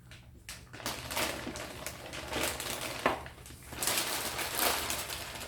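Anti-static plastic bag crinkling and rustling in irregular handfuls as a motherboard is slid out of it.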